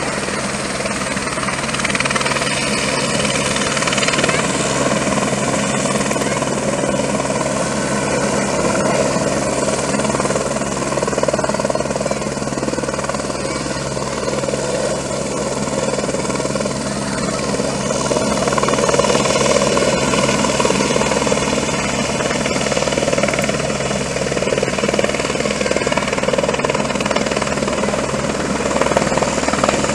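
Firefighting helicopter with a slung water bucket hovering low over a river, its rotor and engine running steadily.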